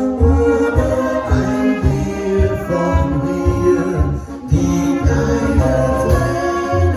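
Live folk band music with singing over a steady bass beat of about two pulses a second.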